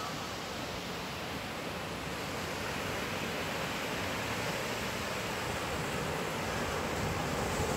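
Ocean waves breaking on the shore, a steady rush of surf that swells slightly near the end; the waves are running strong.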